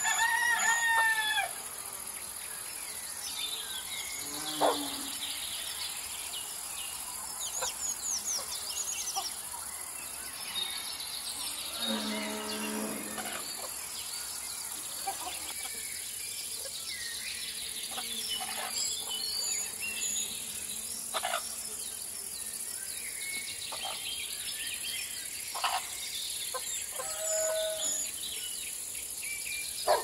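Morning farmyard ambience: a steady high drone of crickets and other insects throughout, a rooster crowing once at the start, scattered short bird chirps, and a lower animal call near the middle.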